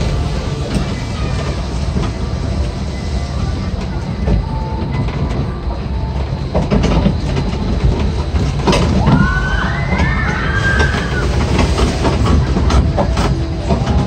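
Amusement-park kiddie train rolling along its track: a steady low rumble with clacking of the wheels. About ten seconds in there is a brief wavering high-pitched tone.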